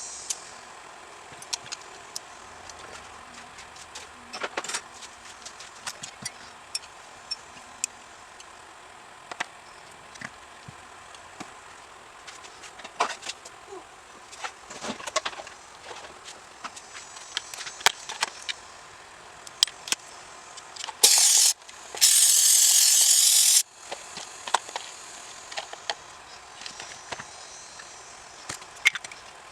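Small metal carburetor parts clicking and tapping as they are handled and taken apart on the bench. About two-thirds of the way through come two loud bursts of hissing spray, a short one and then one of about a second and a half.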